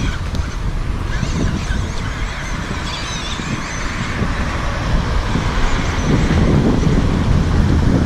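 Red-Kid 1/12-scale 2WD electric RC truck driving over loose dirt, its motor and gears whining in uneven bursts of throttle, with wind rumbling on the microphone.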